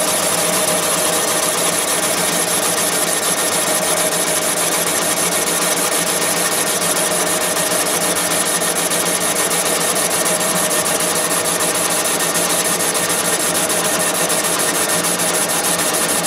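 Thompson boring bar running and taking a dry (oilless) cut down an engine cylinder bore: a steady mechanical whir with a fine, very fast chatter and an even pitch, the bar feeding down at a set speed.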